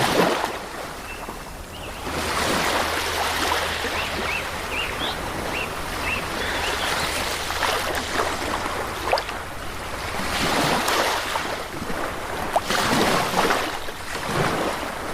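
Sea waves breaking and washing on the shore, the surf swelling and easing every few seconds.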